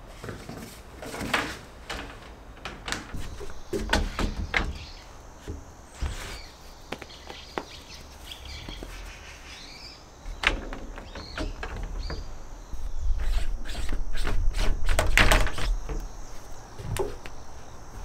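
Knocks and clatter of plastic appliance filters and parts being set down and handled on a wooden table, loudest in the later half. Birds chirp faintly in the background.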